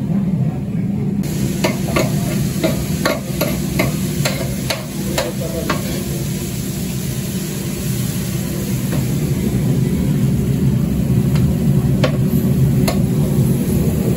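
Diced meat frying in oil on a large shallow steel tantuni pan, over a steady low rumble, with a metal spoon clinking and scraping against the pan in quick runs of clicks during the first six seconds and twice more near the end.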